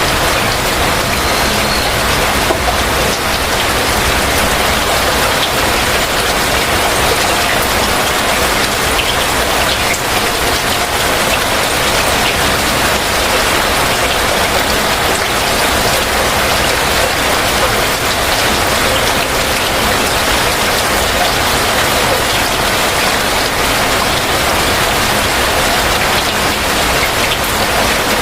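Heavy rain falling steadily, an even, unbroken wash of drops.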